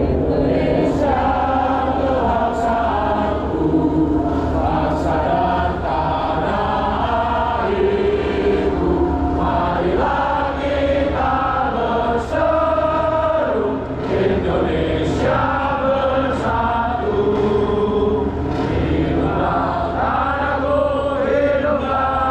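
Many voices singing a slow song together, in long held notes that change step by step, over a low steady hum.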